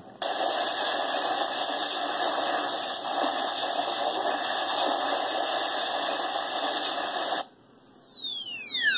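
Proton pack firing sound effect played through a small speaker from an Arduino-driven sound effects board: a steady, loud crackling blast. It cuts off suddenly as the fire button is released, followed by a falling whistle of several tones sweeping down together.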